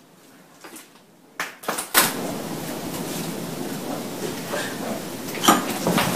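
A door slamming with a sudden loud bang about two seconds in, followed by several seconds of loud, rough noise, another sharp knock near the end, and an abrupt cut-off.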